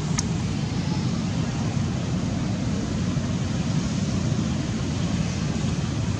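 A steady low outdoor rumble, with one short click just after the start.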